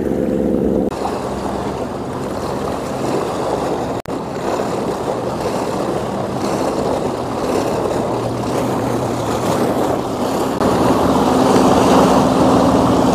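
Sea washing against the rocks with wind noise, and a motorboat's engine hum that comes in about ten seconds in and grows louder toward the end.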